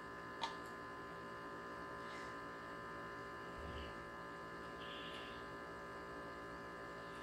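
Steady electrical mains hum with many fine overtones, with one sharp click about half a second in as a phone charger's plug is pushed into a wall outlet, then a few faint handling noises of the charging cable.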